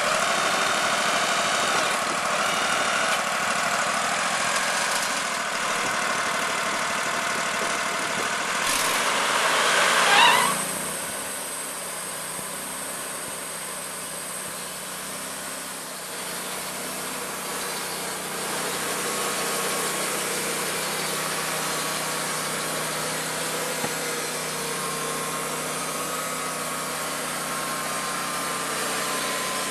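Portable band sawmill's engine running steadily. About ten seconds in, a quick rising whine peaks and then drops off, and the mill settles to a quieter, steady run.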